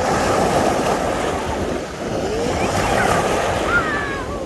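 Sea surf washing continuously onto the beach, with wind buffeting the microphone. A few faint high gliding cries come through about three seconds in.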